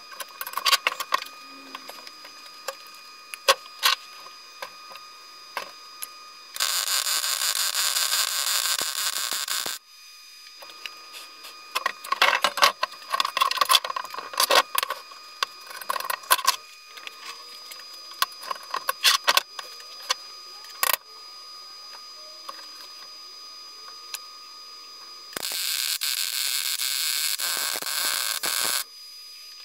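MIG welder burning two welds of about three seconds each, a steady crackling arc hiss, while welding a steel reinforcement plate onto a BMW E36 front subframe. Between the welds, scattered clicks and knocks of the torch and metal being handled.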